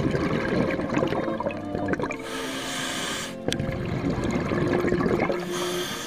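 Background music with long held notes, over an underwater rushing, bubbling noise that swells twice.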